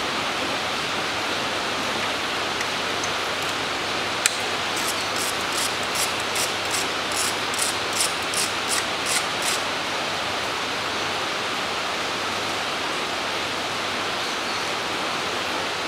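A hand ratchet clicking in short, even strokes, about three clicks a second for some four seconds, as an ignition coil mounting bolt is backed out. A steady hiss of rain runs underneath.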